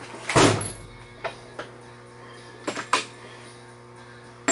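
Tools being handled, most likely the fetching of a breaker bar: a loud metallic clatter about half a second in, then a few light knocks and clicks and a sharp click at the end. Faint music plays throughout.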